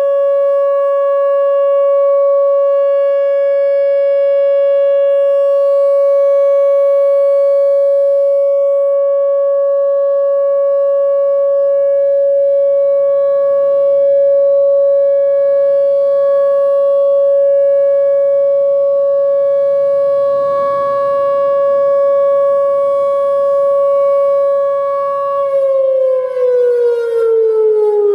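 Whelen Vortex R4 electronic warning siren sounding its Alert signal: one loud, steady tone with strong overtones. Near the end the pitch starts to glide slowly down.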